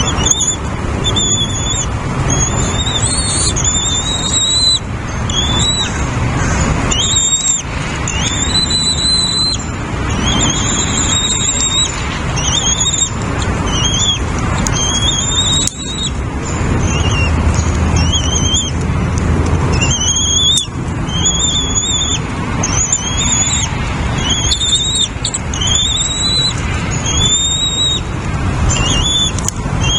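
Bird calling with short, high, upward-curving notes, about one a second and without pause, over a steady background noise like road traffic.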